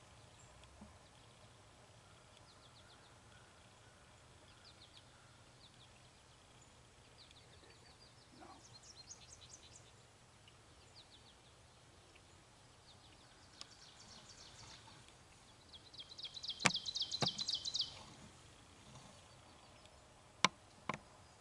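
Songbirds singing short, rapid high trills, repeated every few seconds and loudest about three quarters of the way through. Two sharp clicks come near the end.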